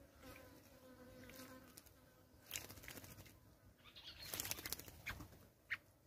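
Kurrichane thrush bathing in shallow water, splashing and fluttering its wings in quick bursts. The bursts begin a little over two seconds in and are thickest about four seconds in. Before them there is a faint steady insect buzz.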